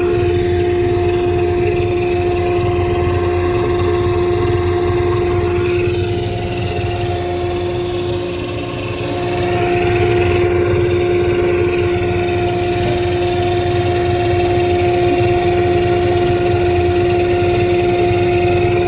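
A motor-driven machine running steadily: a constant hum with a steady whine, dipping briefly in level about halfway through.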